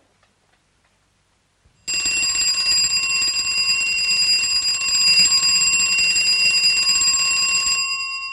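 Mechanical wind-up alarm clock ticking faintly, then going off about two seconds in: its hammer rattles rapidly against the bell for about six seconds, stops near the end, and the bell rings on, fading.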